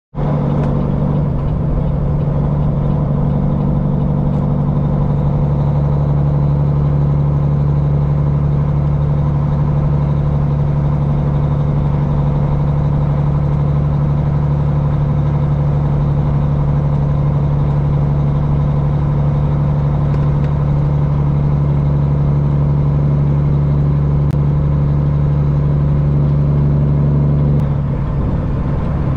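Peterbilt semi truck's diesel engine running at a steady speed, a constant low drone that eases slightly near the end.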